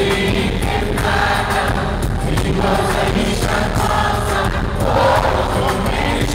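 Live concert music: a band playing, with many voices singing together.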